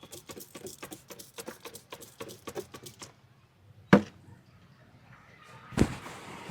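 Hands chopping and tapping in a quick run of strokes, as in a barber's percussive massage, for about three seconds. Then two loud single slaps, about two seconds apart.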